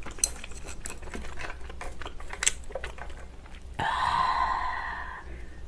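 Close-up eating sounds: scattered light clicks and taps from chewing and from chopsticks and shellfish shells. About four seconds in comes a rasping, scraping noise lasting about a second and a half.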